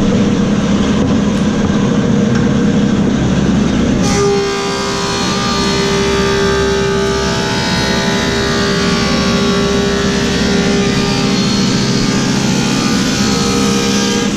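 Woodmaster 725 planer with a helical cutterhead running, then planing a black cherry slab from about four seconds in. Once the board is in the cutter, the machine's steady hum drops in pitch and a dense cutting whine with several steady tones sets in. The higher hum comes back near the end as the board clears the cutter.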